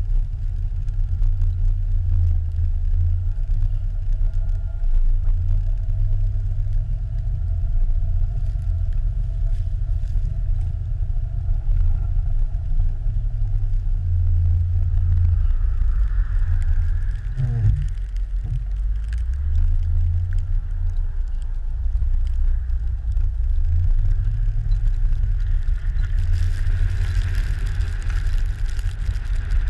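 Jeep Grand Cherokee ZJ driving on a snow-covered road, a steady low rumble of engine and road noise, heard from a camera mounted outside at the side mirror. A tone falls sharply in pitch a little past the middle, and a hiss grows louder near the end.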